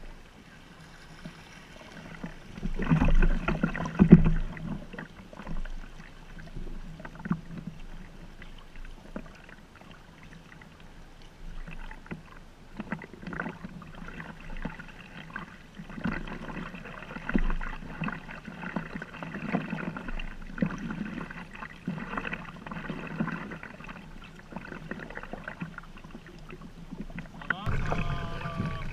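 Sea kayak paddling: paddle blades dipping into the water with irregular splashes and water lapping against the kayak hull, loudest about three seconds in.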